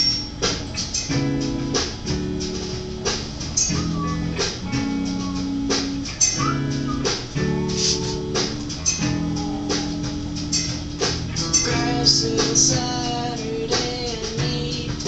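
A recorded song with strummed guitar, a steady beat and some singing.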